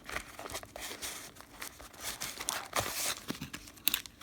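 Packaging being opened by hand: irregular crinkling and tearing rustles, with a sharper crackle near the end.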